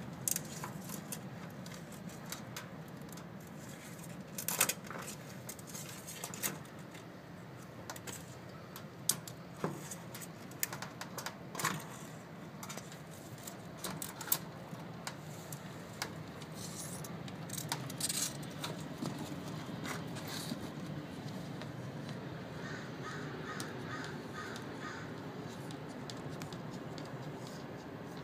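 A tortoise squeezing through a door gap, its shell and claws scraping and clicking against the door and the metal threshold. The clicks and scrapes come irregularly through the first twenty seconds, over a steady low hum.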